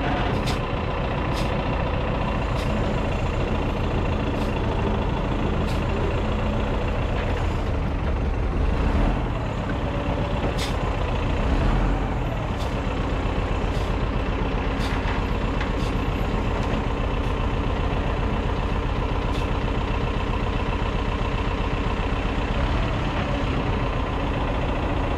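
A heavy engine running steadily, with a low hum and faint clicks about once a second.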